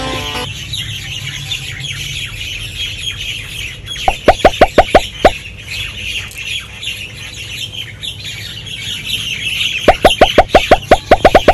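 Background chorus of chirping birds, with two runs of short calls repeated quickly at about six a second: a brief run about four seconds in and a longer one starting near the end.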